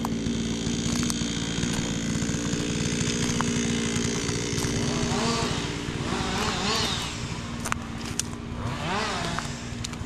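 A small engine running steadily at constant speed, with a few short rising-and-falling sounds over it in the second half.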